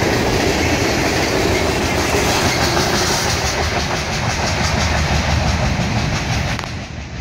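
Freight train cars rolling past with a steady clatter of wheels on rail joints, dropping off in level near the end.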